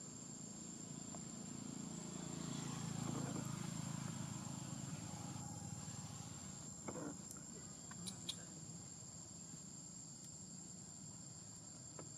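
Steady high-pitched drone of insects. A low rumble swells and fades a couple of seconds in, and a few faint clicks come past the middle.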